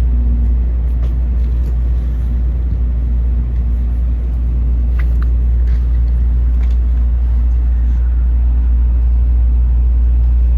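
Steady low rumble inside a Tokaido Shinkansen carriage, with a few faint clicks.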